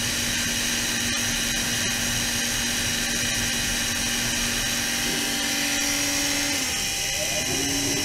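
Ultrasonic cleaning bath running with its liquid-circulation pump: a steady mechanical whine made of several high steady tones over a low hum. Near the end the hum dips in pitch and then settles back slightly higher.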